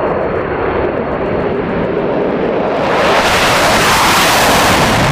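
Twin-engine military fighter jet taking off, its engines running at full power in a continuous jet roar that grows brighter and a little louder about three seconds in as the jet lifts off.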